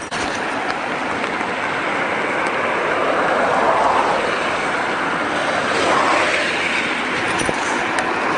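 Steady rushing of the Takatsu River swollen by typhoon rain, swelling and easing slightly.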